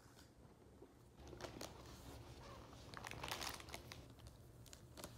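Crinkling of a Cheetos snack bag as a toddler's hand rummages in it: faint, irregular crackles that start about a second in and are thickest a little past the middle.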